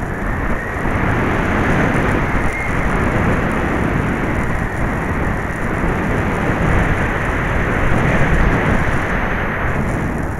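Heavy wind noise on the onboard camera microphone of an FPV model plane in flight in gusty wind: a dense, rumbling rush of air that buffets unevenly.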